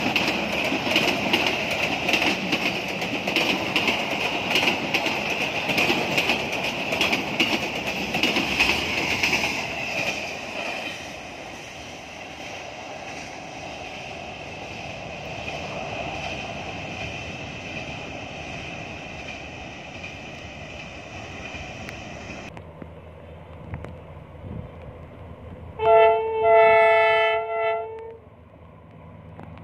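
A Vietnam Railways passenger train passes close by: wheels clattering on the rails, a steady rumble and a high, steady whine. The sound fades after about ten seconds as the train draws away. Near the end, an approaching diesel locomotive sounds its multi-tone horn for about two seconds.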